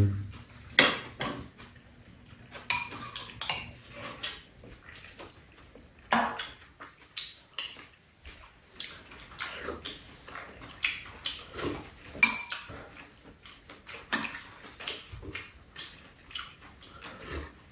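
Metal spoons and chopsticks clinking and scraping against ceramic bowls and a pan during a meal, in short irregular clicks.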